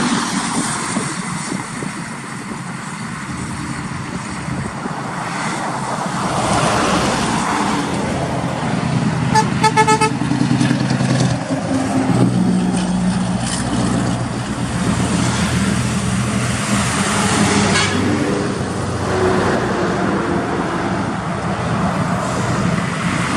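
Scania V8 diesel truck engine running with a deep rumble, with one horn blast of about a second roughly ten seconds in.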